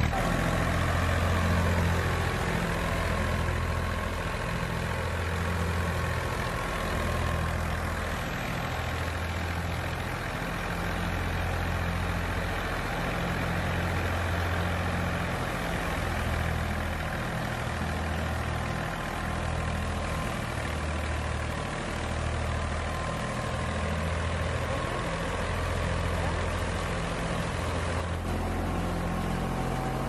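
Tractor engine running steadily, driving a belt-powered wheat thresher while wheat sheaves are fed into the drum. There is a low drone that swells and fades slowly, with a steady whirring rush above it.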